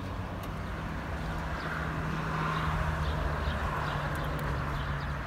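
A motor vehicle engine running steadily, a low hum that swells for a couple of seconds in the middle, with a few faint ticks of small parts being handled.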